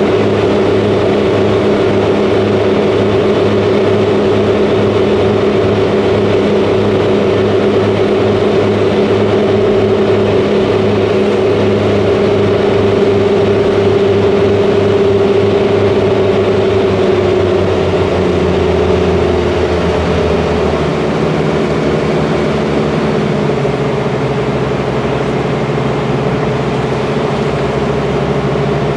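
A small passenger ferry's engine runs steadily under way, heard from the open deck. About two-thirds of the way through, its note changes as the engine setting shifts.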